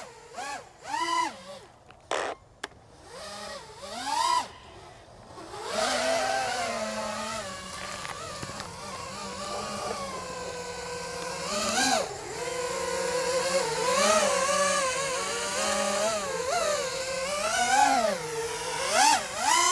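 FPV quadcopter's brushless motors and propellers whining. In the first few seconds they give short throttle blips that rise and fall, then run without a break in flight, the pitch climbing and dropping with the throttle.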